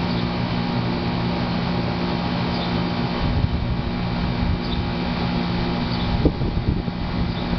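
Guardian central air conditioner running with a steady hum and several even low tones. Some low rumbling midway and a dull knock about six seconds in.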